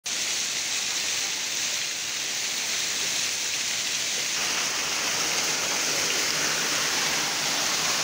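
Waterfall: water pouring off a rock ledge and splashing onto stones below, a steady rushing hiss. About four seconds in it grows fuller, with more low rush.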